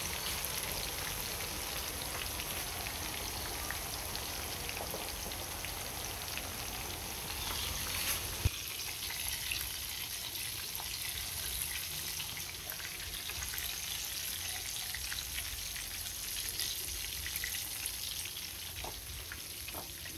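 Salted tofu and lemongrass-chili cá sặc pieces frying in a pan of hot oil: a steady sizzle, with one sharp tap about eight seconds in.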